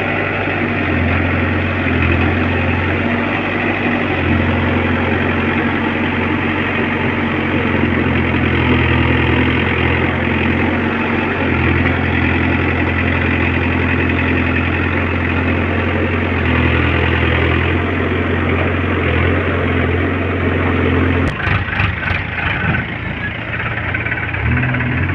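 Diesel engine of a JCB 3DX backhoe loader running at work, its low steady hum swelling and easing now and then. About 21 seconds in the hum drops back and a spell of irregular knocks and clatter follows.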